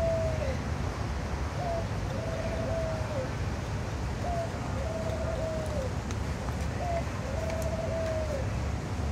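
A dove cooing over and over, about every two and a half seconds. Each coo is a short lead-in note followed by a long, even coo that drops at the end. A steady low rumble runs underneath.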